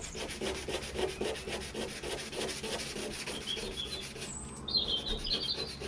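Sandpaper rubbed by hand over the painted aluminium boot lid of a 1961 Rover P4 in quick, even back-and-forth strokes, taking off the worst of the old paint before priming. Birds chirp in the background in the second half.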